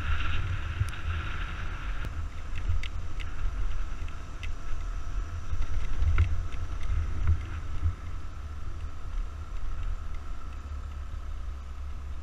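Suzuki Burgman 200 single-cylinder scooter riding along a gravel road. Low wind rumble on the microphone sits over the steady hum of the running scooter and its tyres on gravel, with a few sharp stone ticks scattered through.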